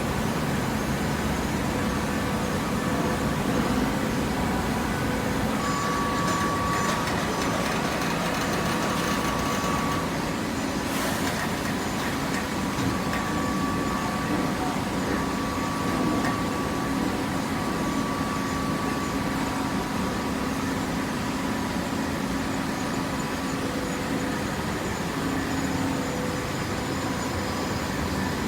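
Vertical downstroke hydraulic baler running, a steady machine hum from its motor and pump with a higher whine that comes and goes.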